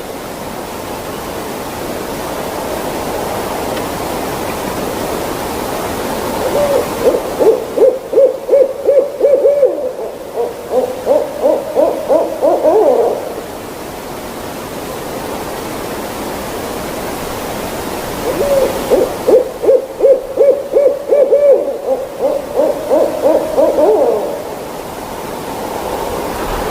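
Owl hooting in two long runs of quick, evenly repeated hoots, each about six seconds long, over a steady rushing background noise.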